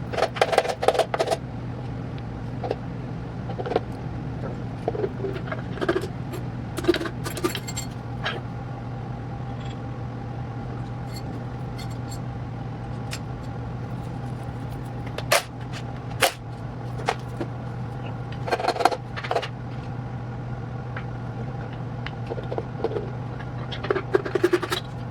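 Metal engine parts and tools clinking, clattering and scraping on and off during a big-block engine teardown, over a steady low hum.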